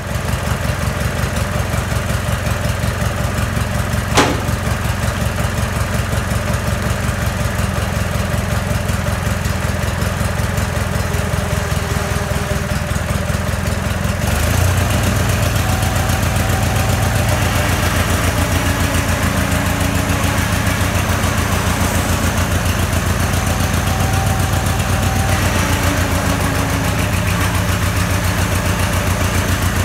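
Small engine of a zero-turn riding mower idling with an even, rhythmic beat, with a single sharp click about four seconds in. About halfway through it speeds up and runs louder as the mower is driven.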